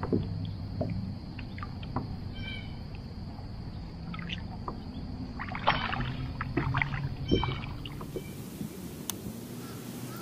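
Small water splash as a bass is let go beside a plastic fishing kayak, then scattered knocks and light clatter of gear and hands against the kayak's hull. The clatter is busier for a couple of seconds in the middle.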